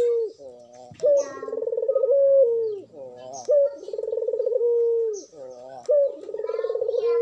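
Barbary dove (puter) bow-cooing: each call is a short higher note followed by a long, pulsing coo that drops in pitch at its end, repeated about every two and a half seconds, three full coos in all. This is the full song of a dove in breeding condition.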